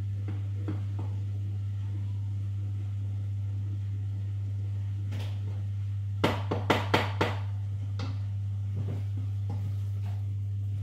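Wooden spoon knocked about five times in quick succession against the rim of a saucepan of cheese sauce, a little past halfway, with faint scrapes of stirring before it. A steady low hum lies under it all.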